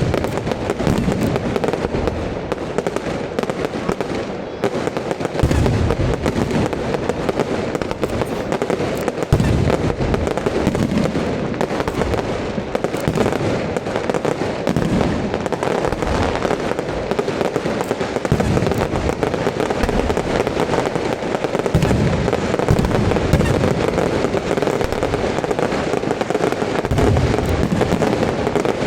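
Fireworks display going off in a dense, continuous barrage of rapid bursts, with deeper booms every few seconds.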